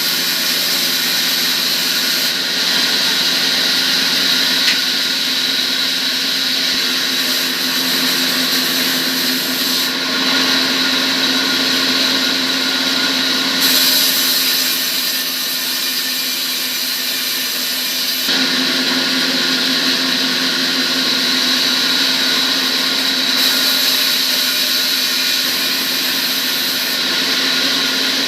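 An electric power tool or machine motor running continuously, with a steady hum and a strong high hiss. The sound changes character in steps every few seconds without stopping.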